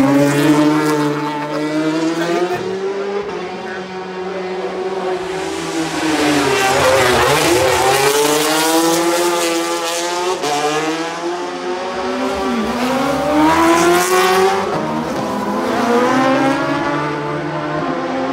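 High-revving road-racing motorcycle engines coming through at race speed. The note twice drops and then climbs sharply again, about seven and twelve seconds in, as the bikes shut off for Ballaugh's hump-backed bridge and accelerate away.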